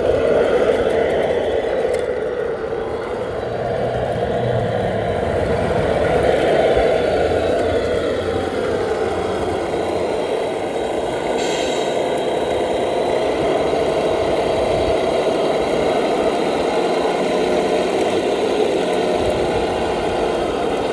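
Tamiya radio-controlled dump truck driving, its motor running with a steady hum that rises in pitch about six seconds in and drops back a couple of seconds later as the throttle changes.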